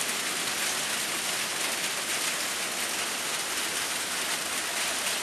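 A steady, even hiss that does not change, with no distinct knocks or tones in it.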